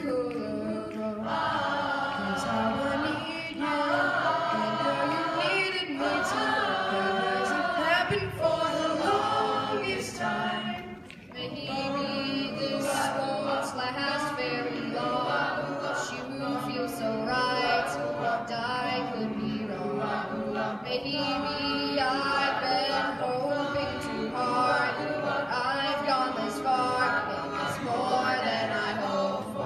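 Middle school boys' chorus singing a cappella in close doo-wop harmony, with a brief drop in level about eleven seconds in.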